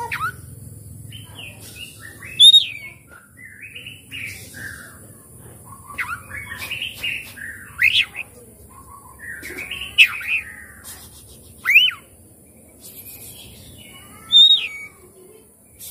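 Oriental magpie-robin singing: a varied string of chattering notes and sharp whistles that sweep up and down, with louder ringing whistles every couple of seconds.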